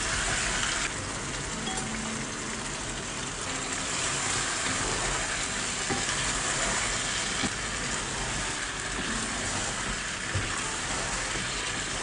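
Taro and eggplant pieces sizzling in a pot while a wooden spoon stirs them, with a steady hiss and a few light knocks of the spoon.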